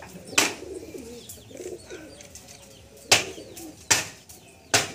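Domestic pigeons cooing softly, broken by four sharp, loud noises: one about half a second in, and three more in the last two seconds.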